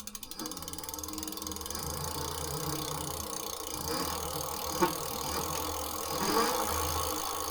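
Engwe M20 e-bike being ridden: steady motor and road noise with rattles, the pitch sliding up and down a couple of times, and a sharp click about five seconds in.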